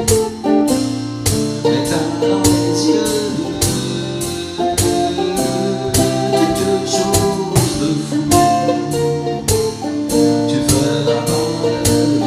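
Mandolin picked in a steady run of quick notes, each with a sharp attack, over ringing lower notes.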